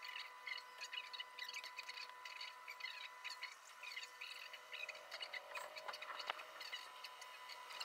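Faint chirping of small birds: many short, high calls in quick succession, with a few sharp clicks and a thin steady tone underneath.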